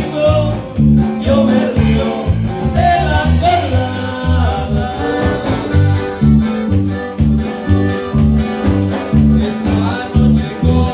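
Live norteño-style band playing: piano accordion, acoustic guitar, electric bass and drum kit over a steady, regular bass beat, with a man singing.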